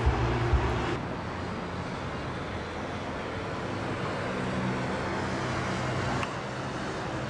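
Steady outdoor city background noise, a low traffic rumble and hum, with a few low thumps in the first second. The sound drops abruptly about a second in and again near the end.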